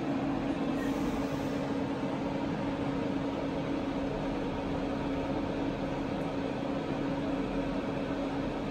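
A steady machine hum: one held low tone over an even hiss, without change.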